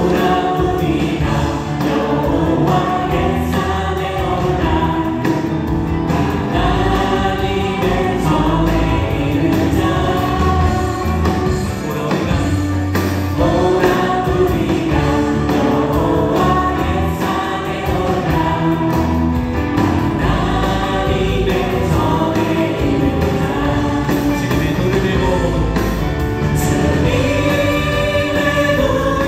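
A church praise team singing a worship song as a group, backed by a live band of keyboard, electric guitar, bass guitar and drums with a steady beat.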